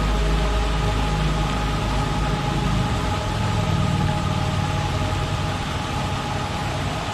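Ambient music: several held tones over an even hiss, with a deep drone underneath that fades out about halfway through.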